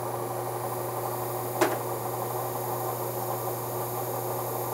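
Electric belt grinder running with a steady motor hum while a stainless steel muzzle brake on a mandrel is held against the abrasive belt, grinding a taper on it. One brief sharp click about a second and a half in.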